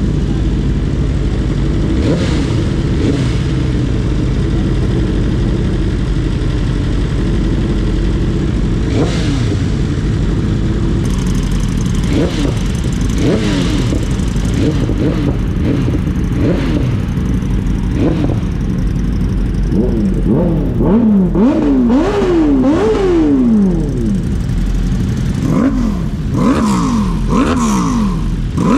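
Sport motorcycle engines idling, then revved again and again in quick blips, each one rising sharply in pitch and falling back. The revving is loudest and most rapid about two-thirds of the way through.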